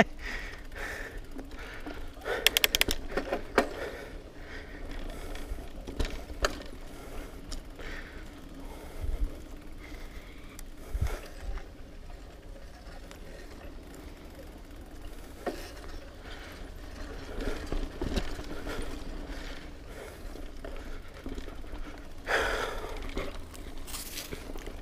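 Mountain bike climbing a dirt trail: its chain and frame rattle and click over bumps, with a cluster of rattles a few seconds in. The rider breathes hard, most plainly near the end.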